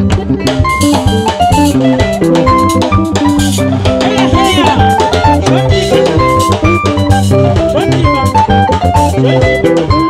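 Live band playing dance music: a drum kit keeping a steady beat under electric guitar, bass and keyboard.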